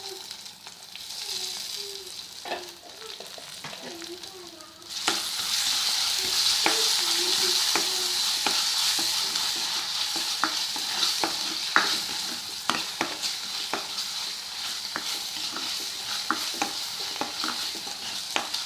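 Onion, green chilli and tomato masala sizzling in hot oil in a pan, stirred with a spatula that clicks against the pan again and again. About five seconds in the sizzle turns suddenly louder and stays so.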